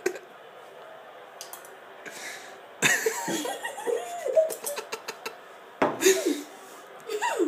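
A boy's wordless pained sounds from the burn of a just-eaten hot chili pepper: a sudden breathy outburst about three seconds in, then strained sounds with a wavering pitch, and another short outburst near the end.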